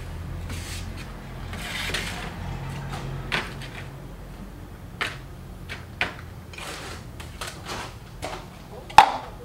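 Small succulent pots made from tin cans being picked up and set down on a tiled floor: a series of short knocks and clinks, the loudest near the end, with a soft rustle as a wicker basket is shifted, over a low steady hum.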